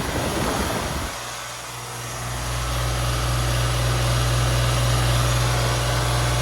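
2010 Philco (Nordyne) 2.5-ton central air conditioner's outdoor unit starting up: a strong, steady low hum builds about two seconds in and then holds loud and even.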